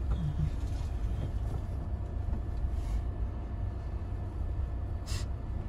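Car cabin noise while creeping along a snowy road in slow traffic: a steady low engine and road rumble. A brief hiss comes about five seconds in.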